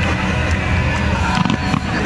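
Fireworks display: a steady low rumble, with the first few sharp crackling pops coming in during the second half.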